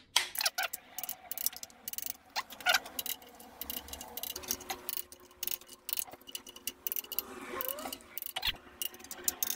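Ratchet clicking of a click-type torque wrench in short, irregular runs as fuel injector and fuel rail bolts are tightened to final torque.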